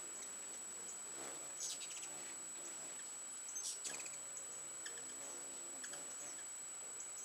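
Ruby-throated hummingbirds chattering: two short bursts of rapid, clicky chips about one and a half and three and a half seconds in, with a few scattered single ticks between.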